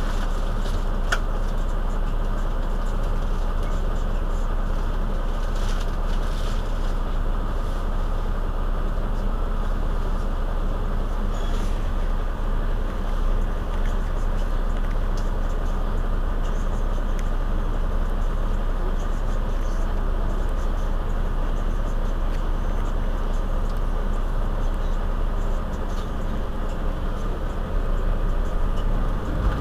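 Mercedes-Benz Citaro C2 city bus's OM936 inline-six diesel engine idling steadily while the bus stands at a stop, with a constant low hum.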